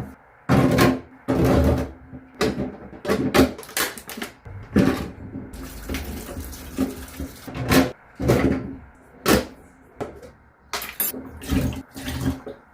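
Water from a kitchen tap splashing into a sink in short, irregular bursts.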